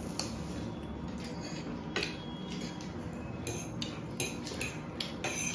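Metal forks clinking and scraping on ceramic plates as noodles and fried chicken are eaten: a series of short, light clicks, more frequent in the second half.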